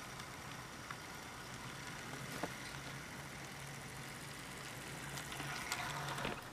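Faint steady electrical hum from an HO-scale model railway setup under power, with a few light clicks. The Athearn Blue Box locomotive on the track does not run.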